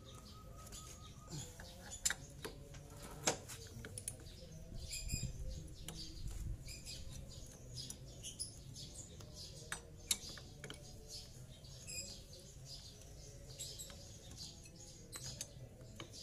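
Small birds chirping in the background, with a few sharp clicks and taps of hand tools on metal while a motorcycle's clutch is being worked on; the loudest clicks come about two and three seconds in, and again about ten seconds in.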